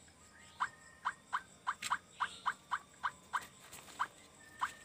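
A series of about a dozen short, sharp chirps, roughly three a second and unevenly spaced, from a small animal.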